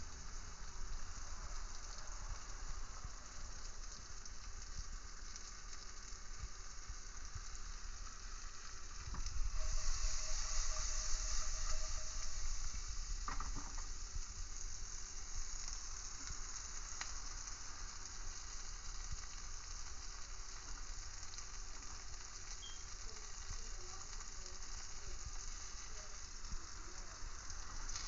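Crinkle-cut fries, oyster mushrooms and green peppers sizzling in hot oil in a frying pan: a steady frying hiss that swells louder for a few seconds about ten seconds in.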